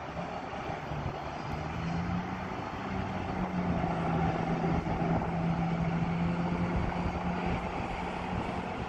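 EP1P electric locomotive hauling a passenger train: a steady rumble, with a low hum that steps up in pitch in the first few seconds and then holds, growing louder through the middle.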